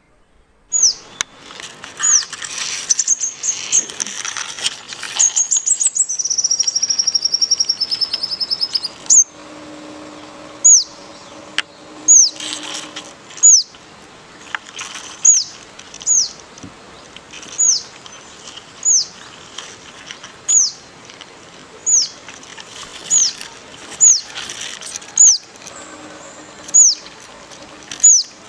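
Songbirds calling: a busy mix of chirps with a fast, buzzy trill for the first several seconds, then one bird repeating a short, high, falling whistle about every one and a half seconds.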